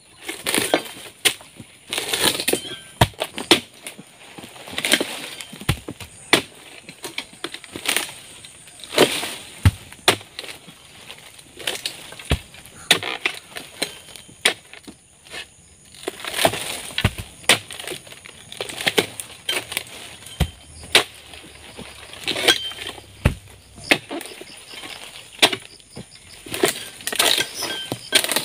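Oil palm harvesting chisel on a long pole jabbed repeatedly into the frond bases of an oil palm: irregular sharp chopping impacts roughly once a second, with rustling as palm fronds are cut and fall.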